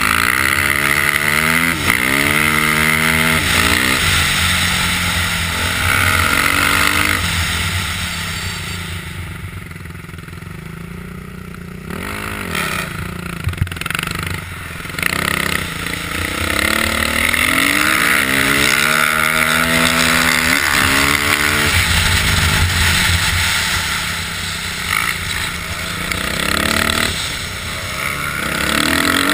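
Motocross bike engine revving hard in repeated rising pulls as it accelerates and shifts up, easing off to a quieter stretch about a third of the way in before pulling hard again.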